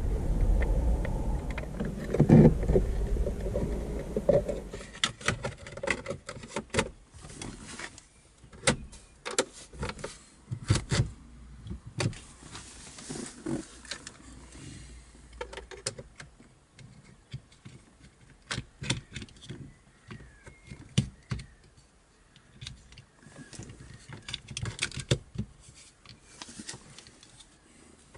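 Scattered sharp clicks and knocks of hard plastic trim as the gear selector lever is moved and the selector cover is handled and clipped back on in a 1986 Peugeot 305's console. A dull low rumble fills the first few seconds.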